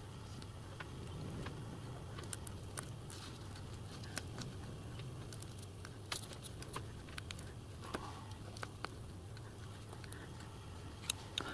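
Faint, scattered light clicks and rustles of brass wire mesh being rolled by hand around a thin rod on a steel plate, over a low steady hum.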